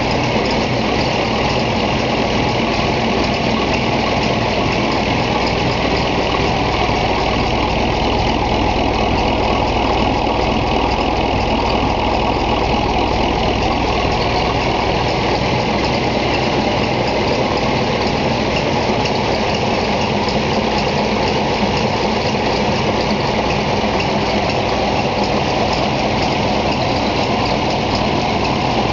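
Freshly overhauled Gardner 5LW five-cylinder diesel engine of a Bagnall shunting locomotive idling steadily.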